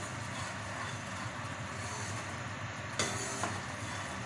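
Tomato and ginger-garlic paste sizzling steadily as it fries in hot oil while being stirred in the pan, with a utensil knocking against the pan about three seconds in and once more just after.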